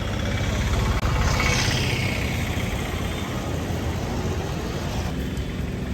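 Road traffic: steady engine and tyre noise, with a vehicle passing close about a second in, its sound falling in pitch as it goes by.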